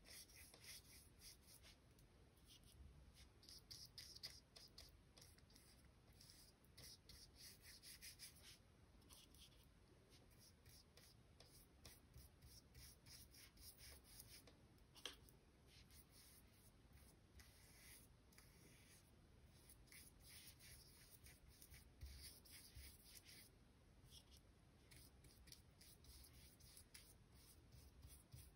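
Faint, repeated swishing strokes of a nylon paintbrush spreading gouache across paper, coming in short runs with brief pauses, and one small click about halfway.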